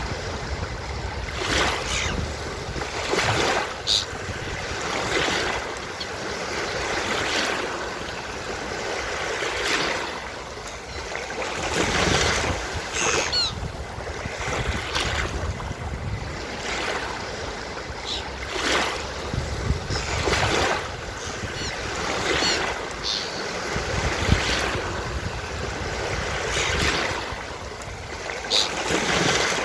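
Ocean surf breaking and washing up a beach in repeated swells, with a few short, high seagull calls now and then.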